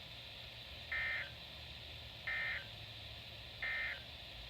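Three short bursts of Emergency Alert System SAME digital data tones, about a second and a half apart: the end-of-message code that closes a weather-service alert broadcast.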